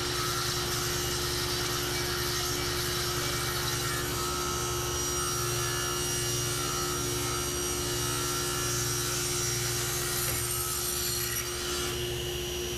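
Table saw running and ripping a bent-laminated wooden arch to width, the blade cutting steadily through the wood over a steady motor hum. The cutting noise thins out near the end as the cut finishes.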